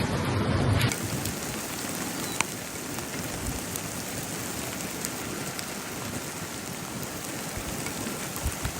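A low rumble for about a second, then steady rain with scattered drops ticking.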